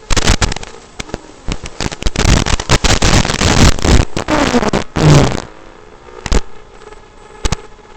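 Harsh crackling noise coming in loud dense bursts for about five seconds, with a brief whine that slides down and back up near the end of the bursts. It then drops to a faint steady hum broken by a few sharp clicks. This is the bad sound of a micro FPV quad's flight recording.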